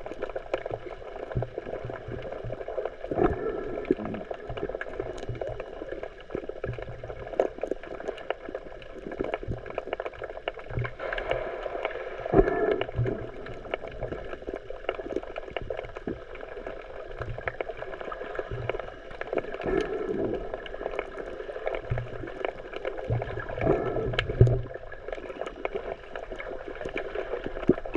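Underwater ambience: muffled water movement with many small clicks throughout and a few louder low thumps, the loudest about twelve seconds in and again near twenty-four seconds.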